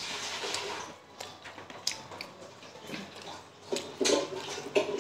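Close chewing and lip-smacking while eating steamed momos (dumplings). There are wet mouth sounds and short clicks, with a louder cluster of smacks near the end.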